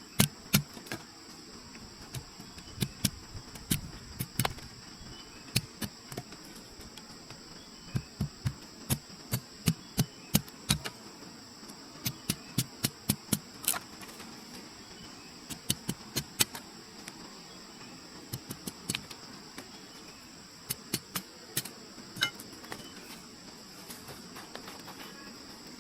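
Runs of sharp knocks, two to four a second, with pauses between the runs. A steady high insect drone sounds behind them.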